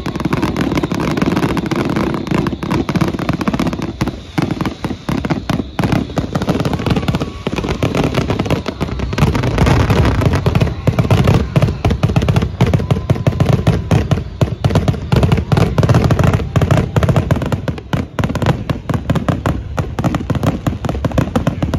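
Fireworks finale: aerial shells bursting in rapid, overlapping succession, a dense, near-continuous barrage that grows heavier about nine seconds in.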